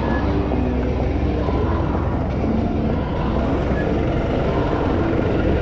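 Busy city street traffic noise, dominated by the engine of a small community bus running close alongside, with a steady low rumble.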